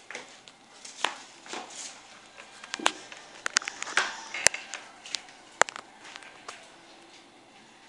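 Guinea pigs eating fresh vegetables: irregular crunching with sharp clicks, the loudest a few seconds in.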